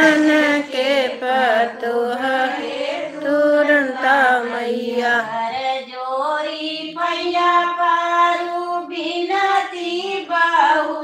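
A group of women singing a Hindi devotional song (bhajan) to the goddess Turanta Mata together, in long held, gently wavering notes.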